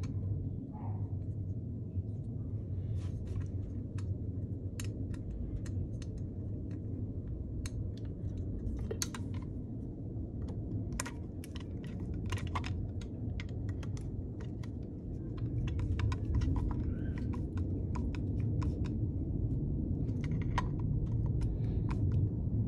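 Light scattered clicks and small metal taps of a screwdriver working small parts down into an Autolite 2100 carburetor's metal body, busier in the last several seconds, over a steady low hum.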